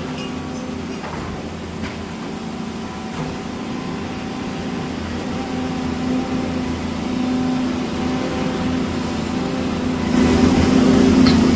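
Large tracked excavator's diesel engine running steadily. It gets louder and fuller about ten seconds in, with a few faint clicks along the way.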